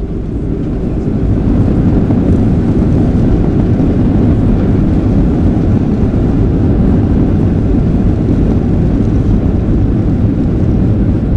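Steady low roar inside the cabin of a WestJet Boeing 737 rolling out on the runway after touchdown, engine and runway noise together. It grows louder over the first second or two and then holds.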